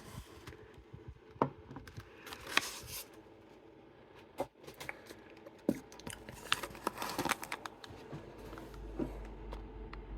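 Scattered small metallic clicks, taps and short scraping rustles as an antique Chubb detector lever lock is handled and opened up to show its insides.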